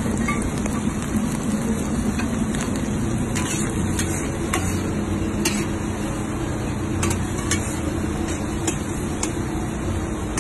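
Diced pork sizzling as it browns in a large steel wok, with a metal spatula scraping and clicking against the pan at irregular intervals as it is stirred.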